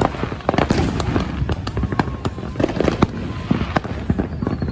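Fireworks going off, a rapid irregular string of bangs and pops, several a second.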